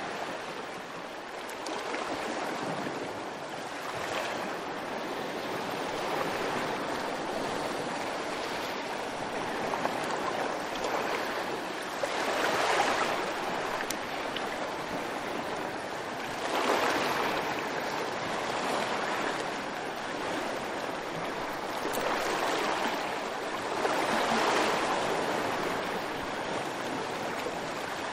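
Rushing water, like waves washing on a shore, swelling into louder surges every few seconds.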